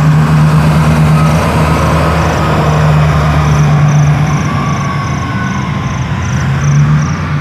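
Caterpillar 777 mining dump truck's diesel engine running loud and steady as the truck drives past close by.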